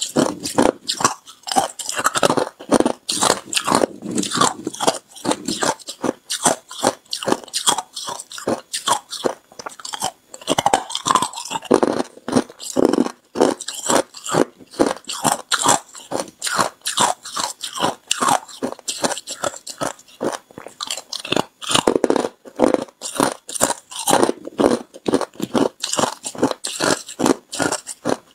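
Crushed ice being chewed, with dense, rapid crunching and crackling several times a second that runs on without a pause.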